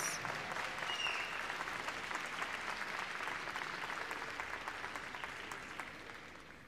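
Large audience applauding, a dense steady clatter of clapping that slowly dies away toward the end.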